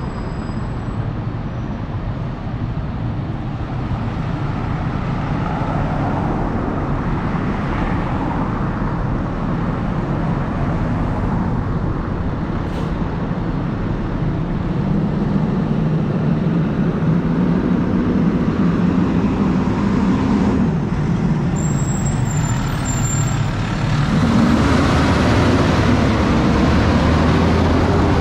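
Street traffic passing close by: vehicle engines and tyre noise, with a heavier engine hum building about halfway through and getting louder again in the last few seconds.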